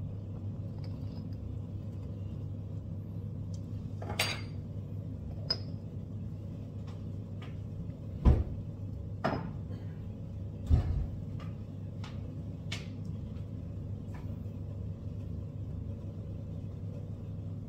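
Kitchen items being handled on a counter: scattered knocks and clinks of dishes and utensils, with two louder thuds about eight and eleven seconds in, over a steady low hum.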